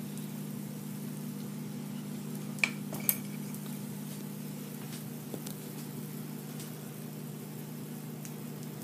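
Two light metal clinks about half a second apart, a little under three seconds in, as a metal measuring cup of pancake batter is set down against the batter bowl. A steady low hum runs underneath.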